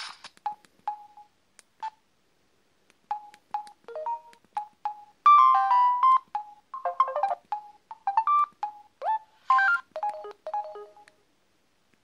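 Samsung M3200 mobile phone beeping: a string of short single key beeps at one pitch as its menus are scrolled, with a short electronic alert chime of several tones about five seconds in and brief chime snippets after it, which are message-tone previews.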